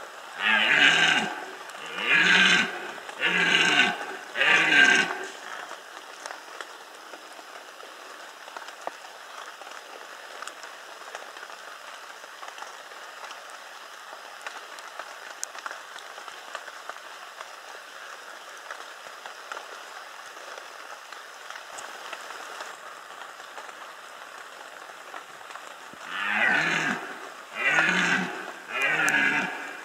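Red deer stag roaring in the rut: four deep roars in quick succession, then after a long pause three more near the end.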